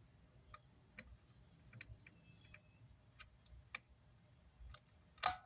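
Faint, scattered small clicks and taps of an alligator clip and jumper wire being worked onto an amplifier terminal, with a louder click near the end.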